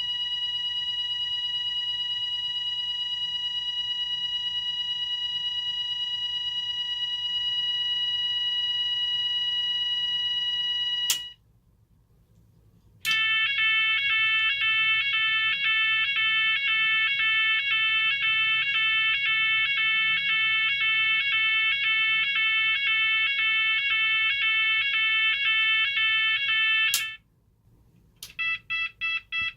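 Cooper MIN-T fire alarm sounder stepping through its tones. A steady, continuous tone stops with a click about 11 seconds in. After a gap of about two seconds, a rapidly pulsing tone sounds until about 27 seconds in. Then, after another short gap, a different tone pulsing about four times a second starts near the end.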